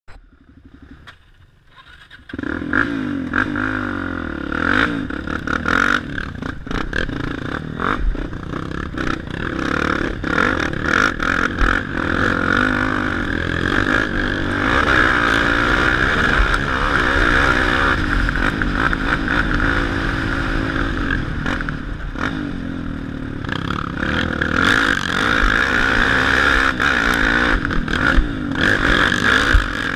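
Sport ATV engine running under way, its pitch rising and falling with the throttle, starting about two seconds in, with frequent knocks and clatter over the rough trail.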